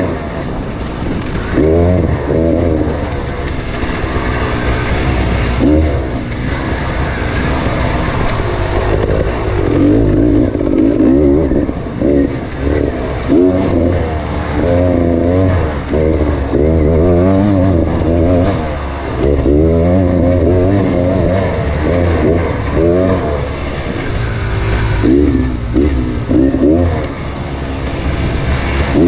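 Two-stroke dirt bike engine being ridden hard, its pitch repeatedly rising and falling as the throttle is opened and closed.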